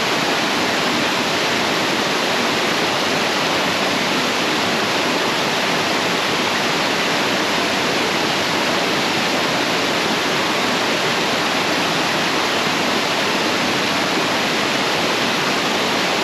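Small mountain waterfall pouring steadily, an even rushing of falling water with no change.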